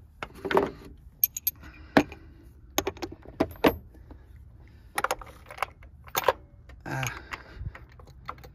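Metal hand tools clinking and clattering: sockets, extensions and ratchets being picked up and set down, giving a string of separate sharp clinks.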